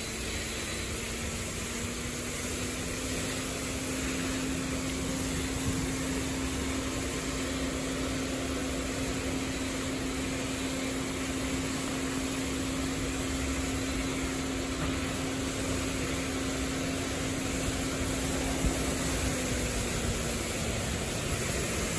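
Washworld Revv automatic car wash spraying water over a car from its overhead rotating arm: a steady hiss of spray with a steady machine hum underneath that rises slightly in pitch a couple of seconds in and drops back near the end.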